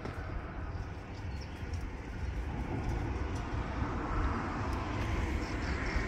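Open-air ambience high above a city: a steady low rumble with a faint hiss, growing louder about halfway through.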